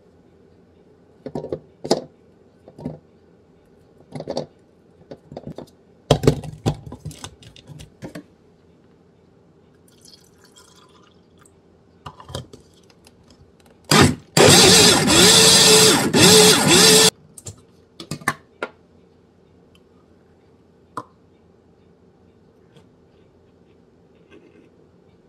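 Countertop blender running for about three seconds, blending banana and milk, with a wavering motor whine, then cutting off sharply. Before it come knocks and clicks of banana pieces and the jar being handled, and a short stretch of liquid being poured.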